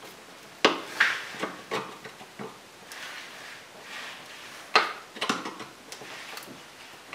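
Screwdriver working at the terminals of a car's fuse box, making scattered small metallic clicks and clinks, in a cluster in the first couple of seconds and another around five seconds in.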